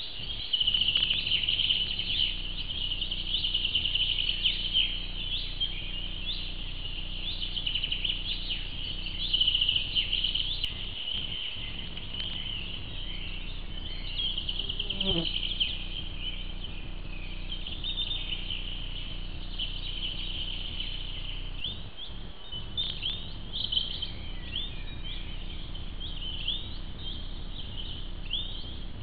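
Woodland birds singing, many quick chirps and trills overlapping, heard through a trail camera's small microphone with a steady low hum underneath.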